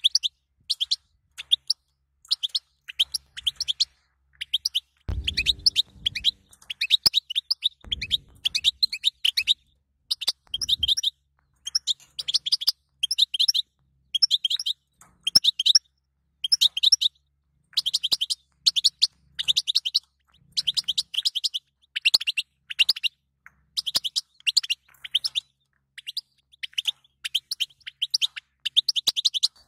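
European goldfinch chatter: rapid phrases of short, high twittering chirps, repeated with brief pauses, the kind of chatter played to stimulate male goldfinches into song. Two short low rumbles come about five and eight seconds in.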